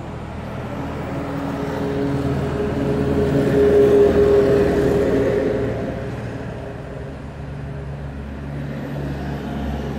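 A motor vehicle's engine hum that grows louder to a peak about four seconds in and then fades away.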